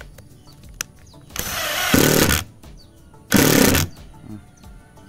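Makita TD110D 12V cordless impact driver boring a bit into hard wood in two short bursts, about a second and then half a second long. Its impact mechanism hammers in a rapid rattle as the bit meets resistance.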